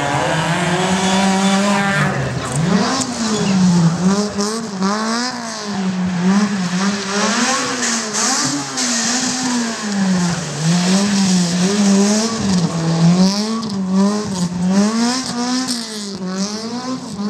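A rally car engine climbing in pitch under hard acceleration, then a Honda Civic Type R rally car's engine revving up and down over and over, about once a second, as it is driven hard around a tight course, with tyre and loose-surface noise.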